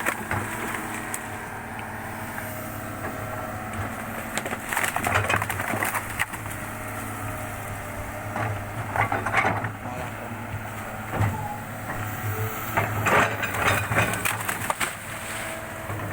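Excavator's diesel engine running steadily, with several bursts of knocking and clatter from the machine working on the muddy track.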